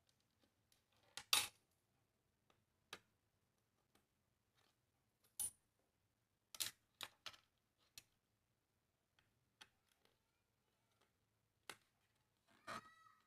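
Scattered sharp clicks and knocks of plastic playset pieces being handled and set down, about a dozen spread unevenly, with a brief squeaky sound near the end.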